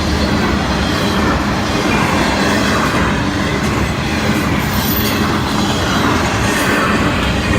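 Florida East Coast Railway intermodal freight train rolling past at close range, a steady loud rumble of wheels on rail with faint high wheel squeals now and then.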